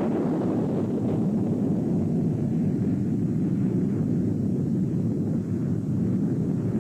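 Steady low rumbling noise, holding an even level throughout, with no pitch or rhythm to it.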